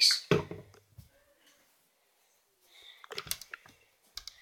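A short loud burst at the very start, then quiet, then a cluster of light clicks and knocks about three seconds in and one more click near the end: small objects being handled.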